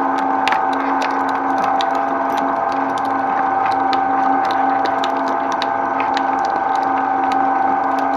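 Twin-shaft shredder running with a steady whine from its motor and gearing, its toothed cutters turning, with many irregular clicks and ticks.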